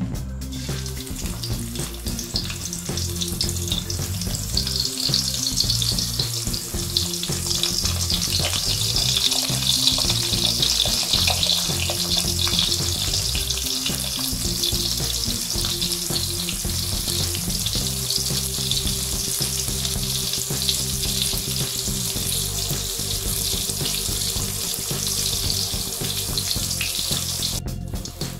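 Split dried threadfin bream (daing na bisugo) frying in hot oil in a wok, a dense sizzling crackle that swells a few seconds in and holds steady. Soft background music sits underneath.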